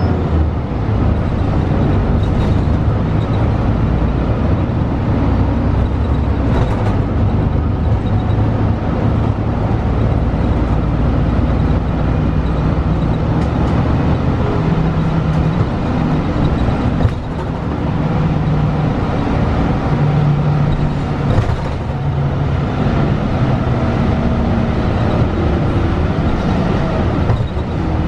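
Cabin sound of a 2012 Gillig low-floor hybrid bus under way: the Cummins ISL9 diesel and Voith DIWAhybrid drivetrain running with a loud steady rumble, the engine note shifting in pitch. A few short knocks and rattles stand out along the way.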